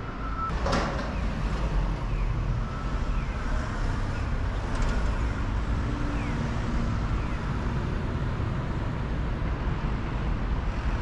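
Street traffic: the steady, low rumble of passing cars, trucks and buses, with a short sharp noise about a second in.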